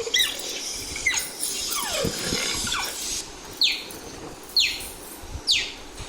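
Cheetah chirping: several high calls that fall in pitch, ending in three sharp chirps about a second apart.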